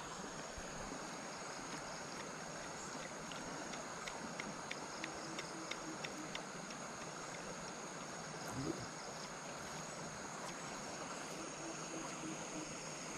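Steady rush of flowing stream water, with a steady high whine above it and a run of faint ticks about four to six seconds in.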